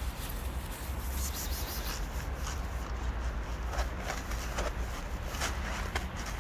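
Scattered light footsteps and rustling from someone walking while filming, over a steady low rumble.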